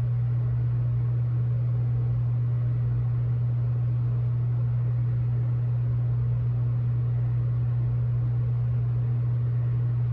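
A steady low hum that holds at one even pitch and level throughout, with a faint hiss above it.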